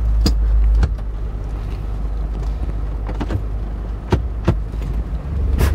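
Jeep Wrangler JK Unlimited's 2.8-litre turbo-diesel engine idling, heard from inside the cabin, with a handful of sharp clicks over it.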